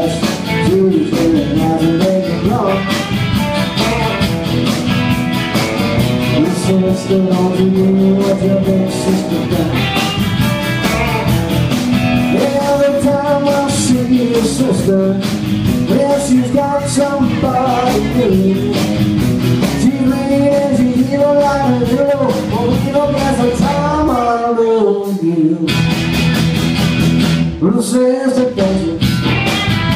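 Live rock and roll band with a male lead singer over acoustic and electric guitars and bass, with a steady beat. The band stops briefly twice near the end.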